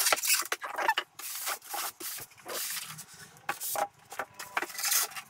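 A computer monitor being tipped upright in its polystyrene foam packing tray, with the foam rubbing and scraping against the monitor and itself in a run of short, irregular bursts with a few clicks.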